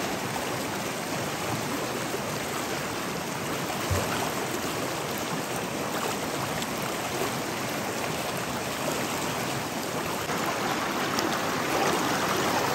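Shallow, fast stream rushing over rocks: a steady wash of running water, with a single knock about four seconds in. It grows louder near the end with splashing as a wader ducks his face into the current.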